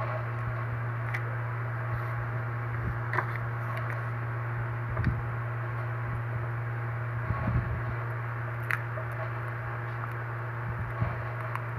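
Steady low hum with room noise, broken by a few small clicks and taps as a smartphone is being prised open.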